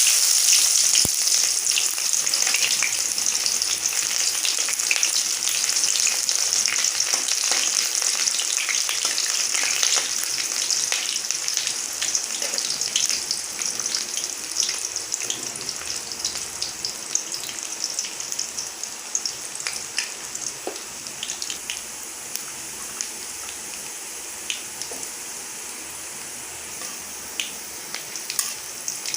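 Chopped onion and a bay leaf frying in hot oil in a pan, with a loud sizzle at first that slowly dies down as the onion cooks. Short clicks and scrapes come from a spoon stirring the onion.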